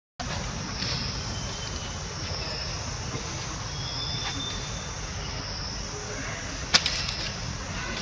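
Outdoor ambience: a steady, high insect drone over a low rumble, with one sharp click about seven seconds in.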